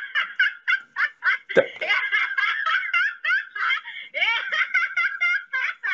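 Hearty, high-pitched laughter in a quick run of bursts, about four a second, without pause. There is a single sharp knock about a second and a half in.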